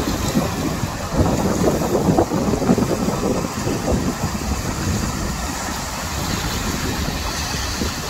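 Wind buffeting the microphone in uneven low gusts, over the steady wash of sea surf on the rocks.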